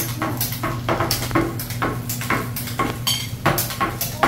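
Teppanyaki chef's metal spatula and seasoning shaker clacking against each other and the steel griddle: a quick run of sharp metallic clinks, about three to four a second, over a steady low hum.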